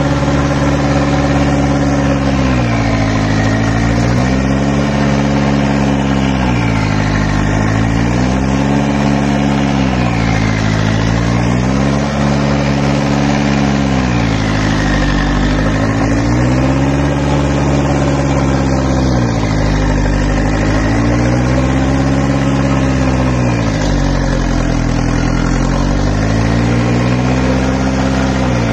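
Mahindra diesel tractor engine labouring under heavy load as its rear wheels spin in loose soil; the engine note sags and recovers over and over, about every three to four seconds.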